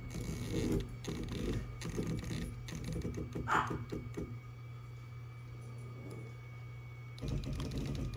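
Onefinity Elite Foreman CNC's stepper motors jogged in short increments from the MPG pendant: rapid trains of small buzzing steps as the bit is lowered toward the zero mark, over a steady low hum. A brief higher-pitched whine sounds about three and a half seconds in.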